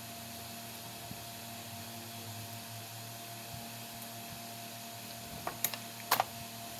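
Steady hum of an electric fan running, with a thin constant tone, and a few light clicks about five and a half to six seconds in.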